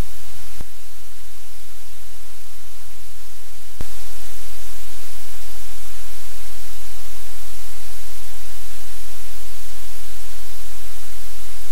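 Loud, steady static hiss with a low electrical hum, and two small clicks in the first four seconds where the hiss shifts in level.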